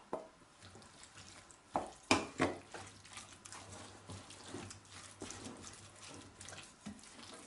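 Wooden spoon stirring and pressing a thick, wet mixture of shredded chicken, soaked bread and ground walnuts in a glass bowl: soft squelching and scraping with small clicks, and a few louder knocks about two seconds in.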